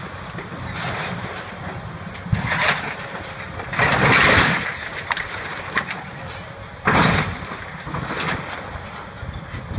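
CAT hydraulic excavator running steadily while its bucket crushes and drags demolished building walls, giving four bursts of crashing and scraping debris, the loudest a little before halfway.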